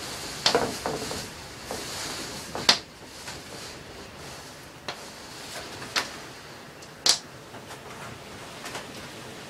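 Heavy typhoon rain hissing, with several sharp knocks and clacks as sliding storm shutters (amado) are handled and pulled shut. The hiss is heaviest in the first few seconds.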